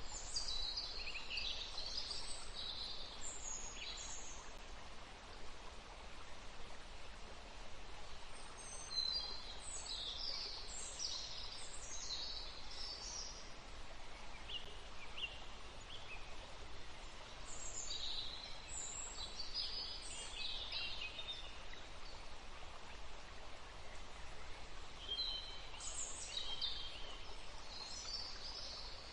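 Forest ambience: steady river flow under songbirds singing in several bursts of high, quick chirps.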